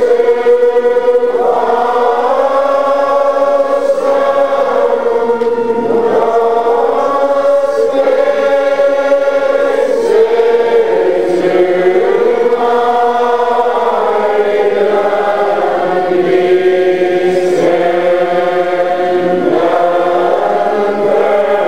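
A large crowd of Old Order Mennonites, some 400 to 500 voices, singing together unaccompanied, in slow, long-held notes that shift gradually from one pitch to the next.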